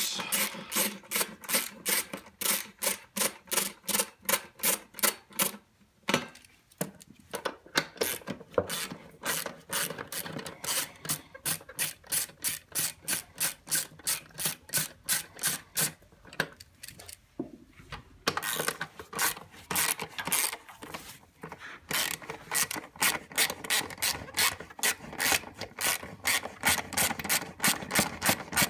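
Ratchet wrench with an 8mm socket clicking steadily, about four clicks a second, as it backs out bolts, with two short pauses.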